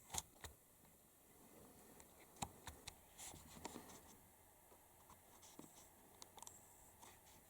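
Near silence, broken by scattered faint clicks and brief light scrapes of handling on a work surface.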